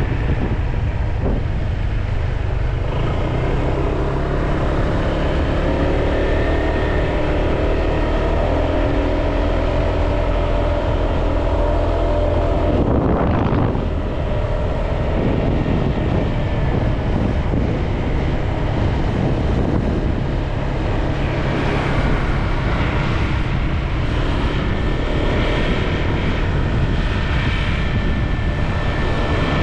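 Honda PCX 150 scooter on the move, heard from the rider's camera: its single-cylinder engine running, with pitch shifting slowly as it speeds up and slows, under steady wind noise on the microphone.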